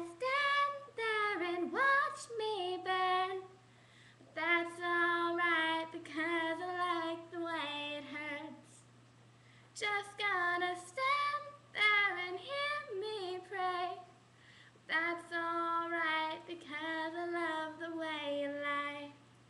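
A young woman singing in a helium-altered voice, in four phrases with short pauses between them.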